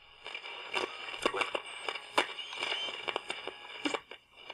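Quiet, irregular crackling and clicking.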